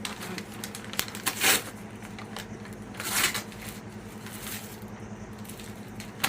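Gift packaging being handled and opened: rustling and crinkling in two short bursts, about a second and a half in and about three seconds in, with a few small clicks over a faint steady low hum.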